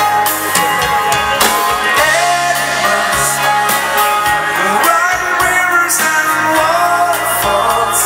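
Live dance band playing a foxtrot at full volume through the PA, with electric guitar, keyboard and drums keeping a steady beat.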